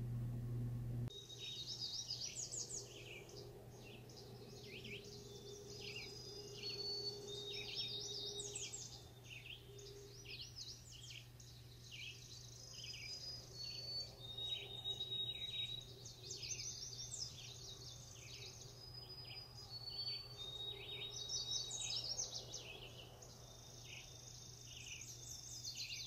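Several birds calling and singing at once: quick high chirps and trills overlapping, with a few short held whistled notes, over a faint background hiss. It starts about a second in.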